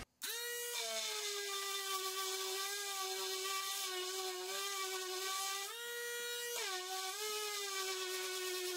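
Electric detail sander running on the edge of a plywood panel, a steady whine. Its pitch starts higher and settles lower within the first second, rises again for about a second around six seconds in, then drops back.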